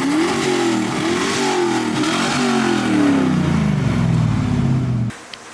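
Car engine revving up and down several times, then cutting off abruptly about five seconds in.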